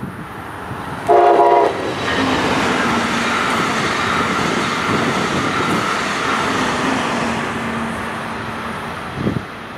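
Brightline high-speed passenger train, hauled by a Siemens Charger diesel-electric locomotive, sounds a short horn blast about a second in, then passes with a steady rush of wheel and air noise for several seconds that fades near the end.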